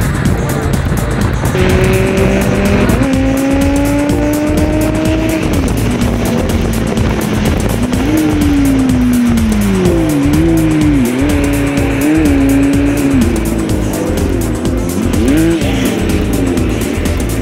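A car driving at speed: engine and road noise, its pitch climbing and dropping several times as the throttle and gears change, with music playing over it.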